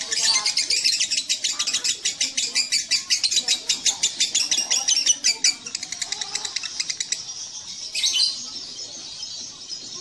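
Fischer's lovebird chattering in a fast unbroken string of short, high notes, about ten a second: the long 'ngekek' chatter that contest lovebirds are bred for. It is loudest for the first five seconds or so, then weaker, with one sharper falling call about eight seconds in.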